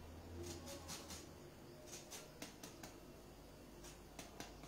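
Faint scattered clicks and small wet squishes of a lemon half being squeezed by hand, with a knife worked into its flesh, over a glass beaker.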